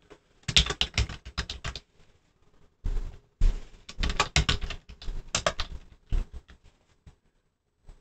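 Computer keyboard typing in two quick bursts of keystrokes, the first about half a second in and the second from about three seconds to nearly six, with a few last clicks after.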